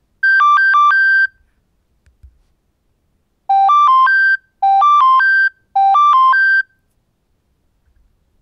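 Nokia 6600 mobile phone playing its built-in alarm tones. About a quarter second in comes a quick phrase of beeps alternating between two pitches. After a pause of about two seconds, a four-note rising beep phrase sounds three times in quick succession.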